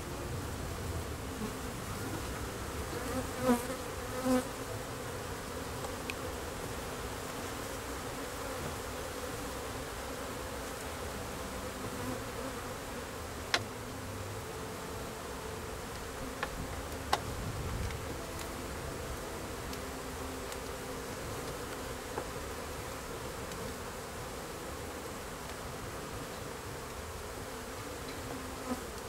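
Steady hum of a honey bee colony, European dark bees, buzzing over an opened hive. A few sharp clicks and knocks come from the metal hive tool prying against the wooden frames.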